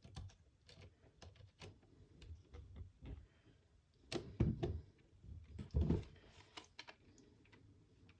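Small screws being turned into a chassis kit by hand: a string of light clicks and taps from the tool and parts, with a few louder knocks of the parts being handled about four and six seconds in.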